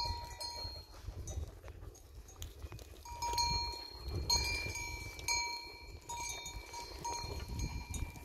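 Bells on a herd of goats clinking and ringing on and off as the animals walk, the rings coming more often from about three seconds in.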